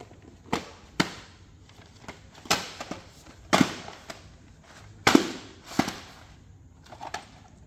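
Plastic VHS tapes and their cases being handled: about seven sharp clacks and knocks at irregular intervals, as tapes are picked up, turned over and set down.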